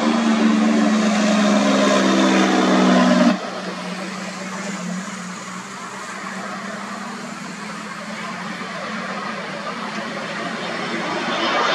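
Jet engines of an Airbus A320-family airliner on final approach: a distant steady rush that grows louder toward the end as the plane nears. For the first three seconds a louder hum with several steady low tones sits over it, then cuts off abruptly.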